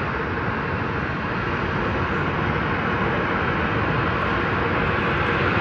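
Boeing 737-800's CFM56-7B jet engines running at taxi idle: a steady jet rumble and hiss that grows slowly louder as the airliner taxis toward the listener.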